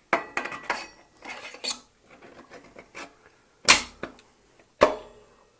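Metal bearing removal tool being handled, clinking and rattling against metal, then two sharp metal-on-metal knocks about a second apart, each ringing briefly.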